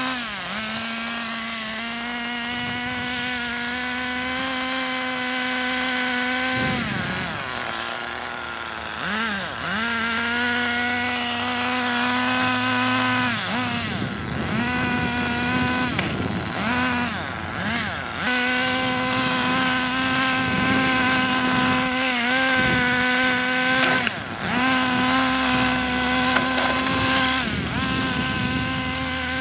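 A nitro RC car's small glow-fuel engine running at a high, buzzing pitch. Its revs drop off and pick back up several times as the throttle is worked.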